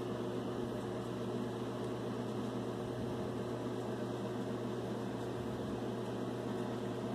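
Steady mains hum with an even hiss of static, as from a vacuum-tube shortwave receiver powered up with its speaker on but no station tuned in.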